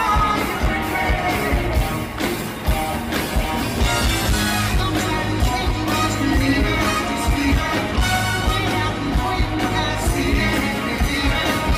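Live pop-rock song played by a band on a concert stage, with a steady drum beat and singing.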